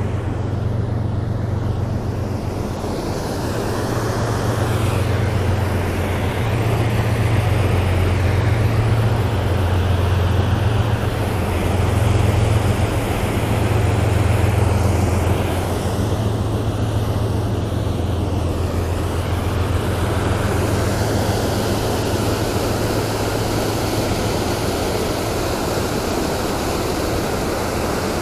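River water rushing steadily over a concrete weir, with a heavy low rumble underneath.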